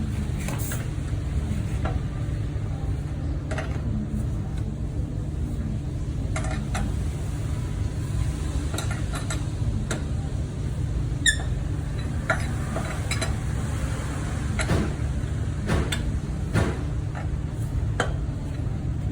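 Car driving, heard from inside: a steady low road rumble with scattered light clicks and rattles. No wheel-bearing drone stands out; the abnormal noise from the failed rear hub bearing has stopped.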